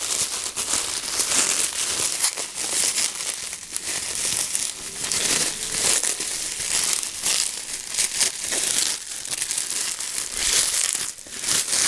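Bubble wrap and a plastic mailer bag crinkling and rustling continuously as hands peel the wrapping off a toy sword, with many small sharp crackles.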